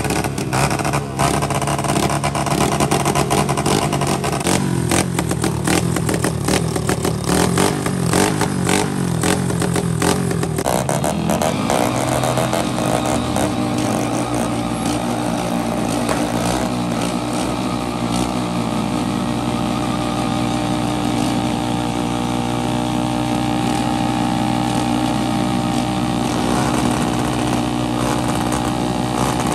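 Motorcycle engines revving hard with rapid backfire pops and crackles from the exhaust. About twelve seconds in this gives way to a scooter engine held at steady high revs through a standing burnout, its rear tyre spinning in place.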